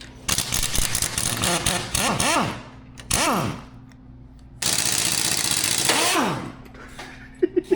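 Impact wrench running in three bursts, a long one, a brief one, then another long one, each spinning down with a falling whine, as suspension bolts are taken out.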